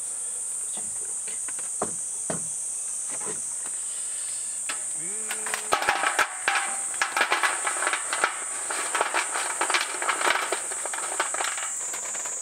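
Insects keep up a steady high-pitched drone. Over it come a few scattered clicks, then from about halfway a dense run of irregular crackles and clatters.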